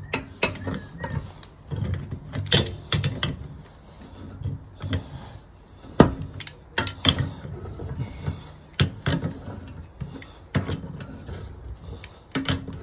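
A pipe wrench clanking and scraping on galvanized gas pipe fittings as they are loosened, in irregular sharp metallic clicks and knocks. The loudest knock comes about six seconds in.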